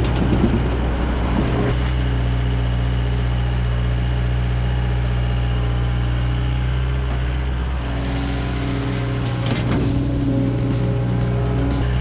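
Komatsu PC75UU-2 midsize excavator's diesel engine running steadily while grading, with a higher tone that comes and goes over it from about eight seconds in.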